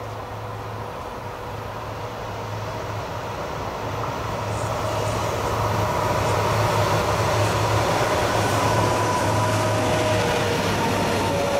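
VR Sr1 electric locomotive hauling a freight train approaches and passes. The rail and machinery noise grows louder over the first half, with a steady low hum and higher whining tones. The tones drop slightly in pitch near the end as the locomotive goes by.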